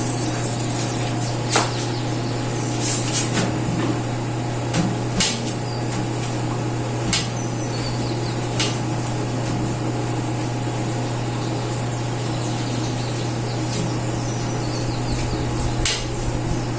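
Scattered sharp knocks and clinks of hard objects being handled, about seven in all, over a steady low hum.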